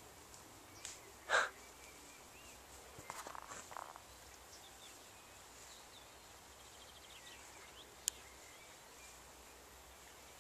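Quiet open countryside with faint, scattered bird chirps. A short breathy snort or sniff stands out about a second and a half in, with a few soft rustles and a sharp click later on.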